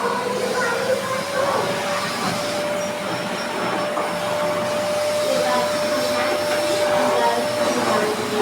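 Vacuum cleaner running: its motor whine climbs in pitch over the first second or so as it spins up, then holds steady over a constant rushing of air.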